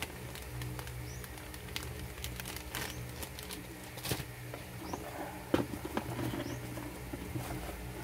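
Hands handling a motherboard's packaging: the clear plastic bag of SATA cables crinkling, then the cardboard box and paper manuals rustling and knocking, an uneven run of crackles with the sharpest about four seconds in and again about five and a half seconds in. A steady low hum sits underneath, with faint short high chirps every second or so.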